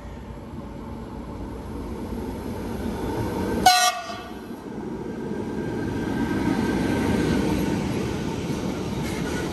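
A train approaching, its rumble slowly growing louder, with one short, sharp toot of the train horn about four seconds in.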